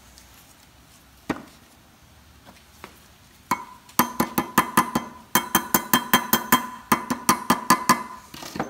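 Steel brake caliper bracket struck repeatedly with a small hand tool: a couple of single knocks, then from about four seconds in a fast run of sharp metallic strikes, about five a second, each ringing briefly.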